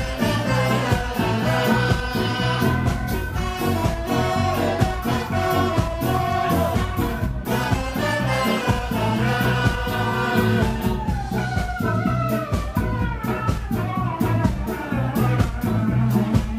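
Live ska band playing, a drum kit and bass keeping a steady beat under saxophones and singing.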